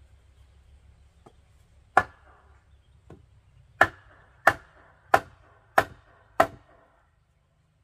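Wooden post hammered on its top end with a short length of wood, driving it down: one sharp wooden knock about two seconds in, then five more in a steady run, about one and a half a second.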